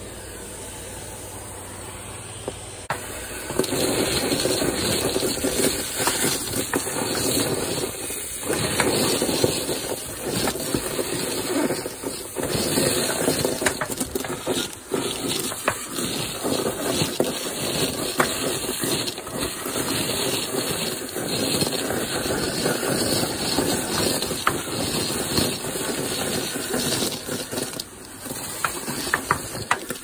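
Industrial gutter vacuum running with a steady rushing hiss as its wand sucks debris out of a roof gutter. It gets louder about three and a half seconds in, and frequent small clicks and rattles come from debris going up the hose.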